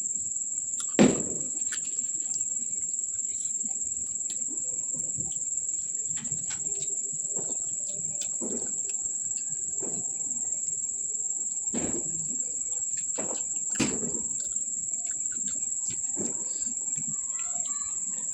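Sounds of a person eating a meal of rice and curry: scattered soft clicks, smacks and low knocks of chewing and food handling, with a sharp knock about a second in. A steady high-pitched whine runs underneath throughout.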